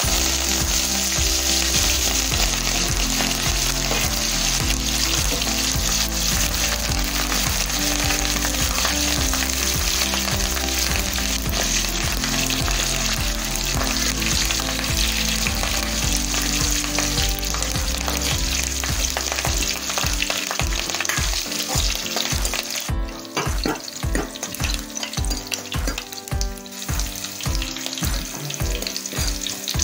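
Green leaves frying in hot oil in a wok, a steady loud sizzle, stirred with a metal spoon. The sizzle eases a little about three-quarters of the way through.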